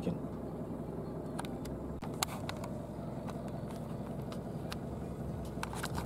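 Car engine and road noise heard from inside the cabin while driving slowly: a steady low hum, with a few light, sharp clicks scattered through it.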